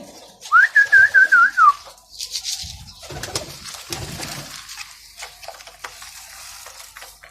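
Pigeons cooing in a loft, with a short loud warbling whistle about half a second in that rises, wavers and falls away.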